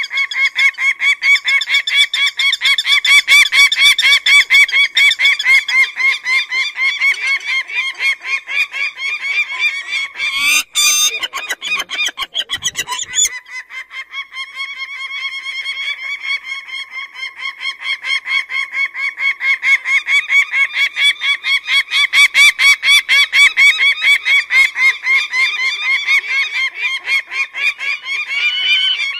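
Peregrine (shaheen) falcon giving a rapid, harsh, repeated cackling call, several notes a second. About ten seconds in, a short burst of noise breaks the series, and the calls then build back up.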